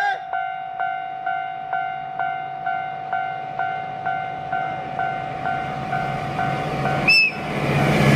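Japanese level-crossing alarm bell ringing steadily, about two strikes a second. Near the end a DF200 diesel locomotive gives a short high toot on its whistle, and the rumble of the oncoming locomotive swells to the loudest sound.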